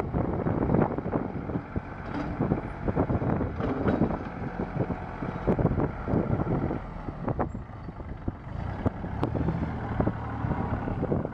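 The Cub Cadet 8354 tractor's Daedong three-cylinder diesel engine running, with wind buffeting the microphone in irregular gusts.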